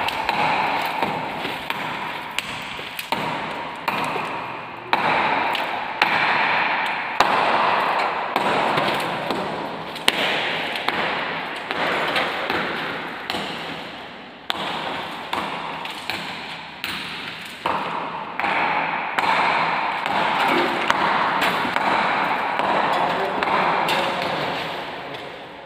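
Repeated sharp strikes, roughly one a second, each ringing out and fading before the next.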